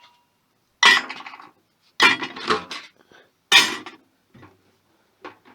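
Metal parts and tools clattering during the stripping of a microwave: three loud metallic clanks, one under a second in, one about two seconds in with a quick second knock, and one about three and a half seconds in.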